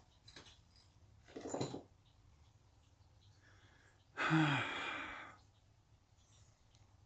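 A man sighs once, about four seconds in: a long breathy exhale whose voice drops in pitch at the start. A shorter, fainter breath comes about a second and a half in.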